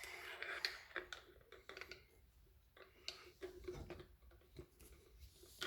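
A stirring stick clicking and tapping against the inside of a bottle as a soapy, coloured water mix is stirred: faint, irregular small knocks.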